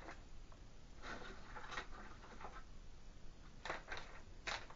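Faint handling noises as canister filter media and baskets are worked with: soft rustling, then a few light clicks near the end.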